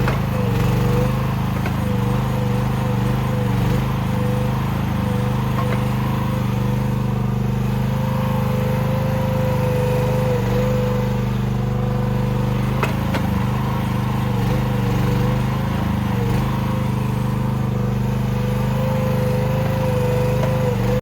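Mini excavator engine running steadily at full throttle, with a whine that wavers up and down in pitch above the engine note. The sound cuts off suddenly at the end.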